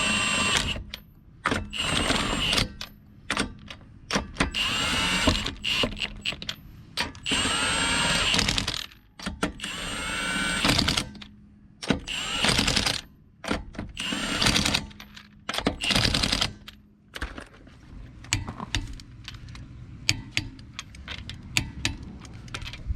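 Power impact wrench running lug nuts onto new wheel studs in about eight short bursts, its motor whine rising and falling in each. Scattered clicks and taps follow in the last few seconds.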